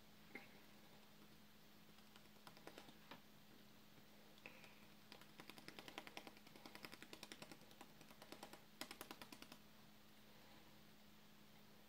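Faint, rapid tapping in bursts of about ten taps a second, loudest in the middle, over a low steady hum.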